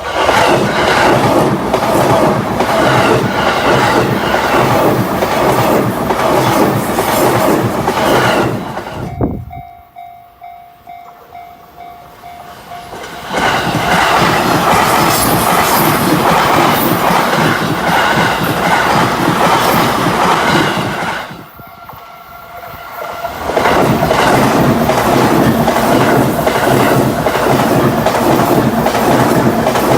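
Chuo Line trains passing close by, loud wheel and car noise with rapid clatter, three times. In the two short lulls between the passes a level-crossing warning bell rings steadily.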